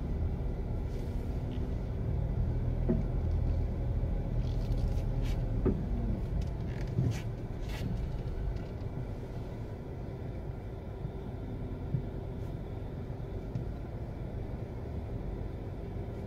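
Street traffic outdoors: a steady low rumble of car engines and tyres, louder in the first half, with a few faint clicks.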